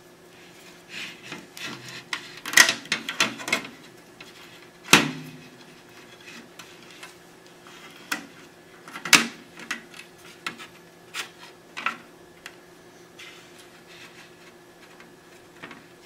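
Handling noise as a 3.5-inch hard drive is set into a metal DVR case and its cables are fitted: irregular clicks, scrapes and knocks of metal and plastic, with a quick cluster about three seconds in and single sharper knocks at about five and nine seconds in.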